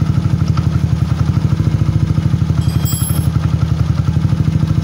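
Liquid-cooled, fuel-injected motorcycle engine idling steadily with an even, rapid pulsing beat.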